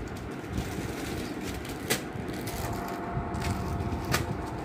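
Plastic packaging crinkling as a saree is unwrapped and handled, with a few sharp clicks over a steady background hiss.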